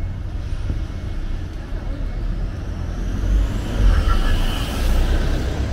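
Road traffic on a busy city street: a steady low rumble of engines and tyres, swelling as a vehicle passes close between about three and five seconds in.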